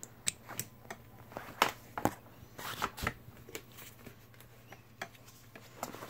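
Plastic seat-belt buckle and strap on a high chair harness being handled by a toddler: irregular sharp clicks and taps, the loudest about a second and a half in, with light rustling between them.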